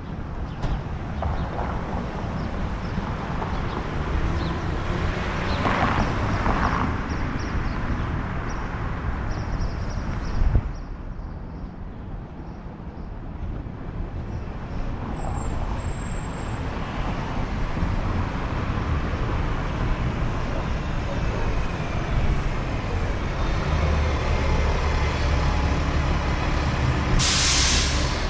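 Road traffic with heavy vehicles going by: a steady engine and tyre rumble, a short knock about ten seconds in, and a brief sharp hiss near the end.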